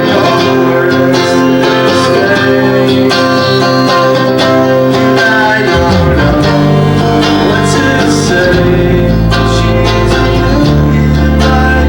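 A live band playing a country-flavoured song, with guitars, bass and singing.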